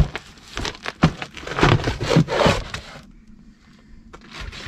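Cardboard shipping box and plastic wrap being handled, rubbing and scraping in a run of irregular scrapes over the first three seconds, then quieter.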